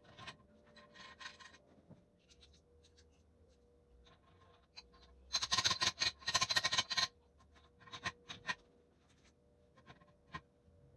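Metal parts of a homemade bench drill press clinking as they are fitted, with a dense run of sharp hammer taps about halfway through as a part is driven onto the top of the head. A faint steady hum sits underneath.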